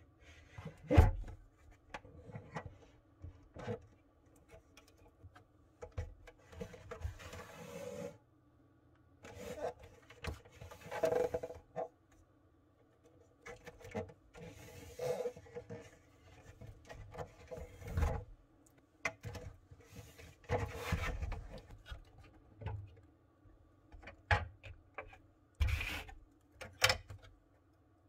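Hard plastic parts of a Kebonnixs 12-egg incubator being handled and taken apart: irregular clicks, knocks and scraping as the clear dome lid and the egg-turning tray insert are moved and lifted out.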